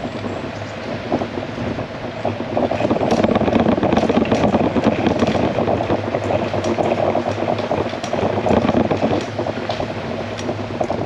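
Riding noise from a 20-inch folding bicycle on rough asphalt, picked up by a handlebar-mounted camera: tyre rumble and wind on the microphone, a dense crackly hiss that grows louder in the middle.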